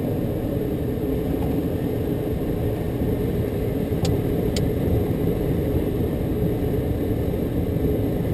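Steady rush of airflow around a light aircraft's cockpit as it glides with its engine shut down. Two faint clicks come about four seconds in, half a second apart.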